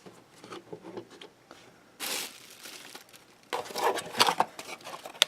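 Handling noises from fetching a small tool and poking it in among the parts: a rustle about two seconds in, then a quick run of small clicks and scrapes near the end.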